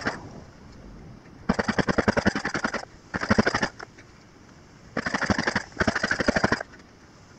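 Husqvarna chainsaw being pull-started: four hard pulls on the recoil starter, each a quick rattling run of compression strokes as the engine turns over. It does not catch.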